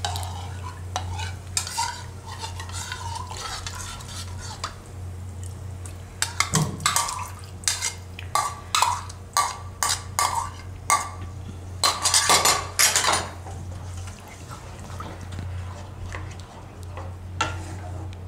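A steel spoon stirring and clinking in a bowl of spiced yogurt, then a spatula scraping and knocking over and over against a wok as the yogurt mixture is stirred, busiest about twelve seconds in. A steady low hum runs underneath.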